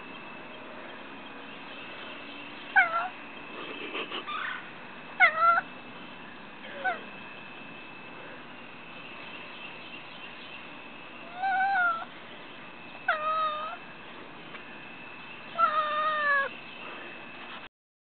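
Domestic cat giving about six short, high meows, spaced a few seconds apart: the excited calls of a cat that can see birds and squirrels outside.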